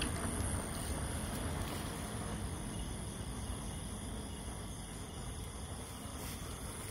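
Night insects, crickets by their kind, chirring steadily and high-pitched over a low rumble that slowly fades over the first few seconds.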